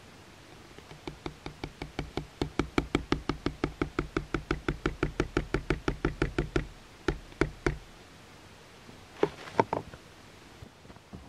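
A run of rapid, even knocks, about six a second for around six seconds, then three slower knocks and two louder ones near the end.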